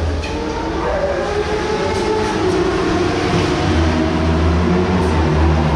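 Suzuki GSX-R1000 inline-four motorcycle engine running, a steady drone with a rush of noise over it, growing a little louder about three and a half seconds in.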